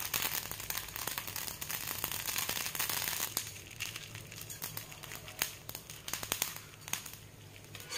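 Cinnamon, poppy seeds and fennel seeds frying in a little hot ghee in a pan: a dense crackle of small pops that thins out after about three and a half seconds to scattered pops.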